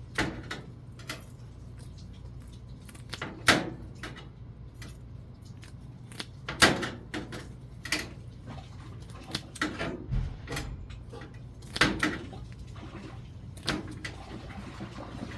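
Irregular sharp clicks and clatters of small hard objects being handled, the loudest about three and a half, six and a half and twelve seconds in, over a steady low hum.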